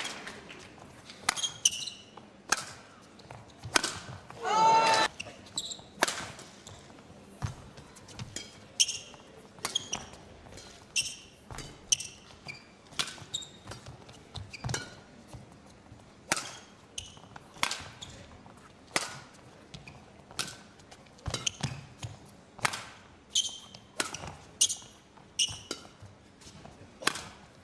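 Badminton rally: rackets strike the shuttlecock in sharp smacks roughly once a second, with a few short squeaks from players' shoes on the court between the hits.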